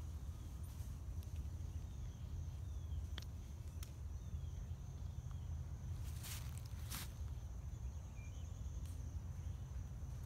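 A steady high-pitched insect drone over a constant low rumble, with two crunching footsteps in dry leaf litter about six to seven seconds in.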